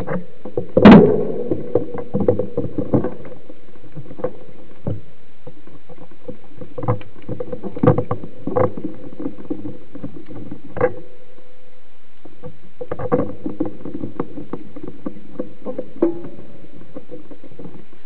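Mountain bike rattling and knocking as it rides over a rough dirt trail: a run of irregular clatters and bumps, with one hard bang about a second in and a brief lull about two-thirds of the way through.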